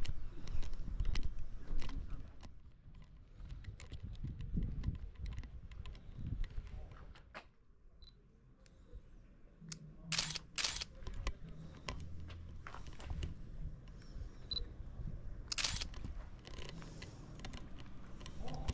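FUJIFILM X100V shutter clicking: twice about halfway through, half a second apart, and once more a few seconds later, over low handling and walking noise.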